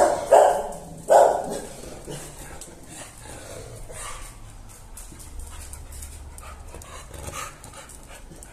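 Dogs barking, set off by a shadow at the gate: two loud barks in the first second or so, then only faint sounds.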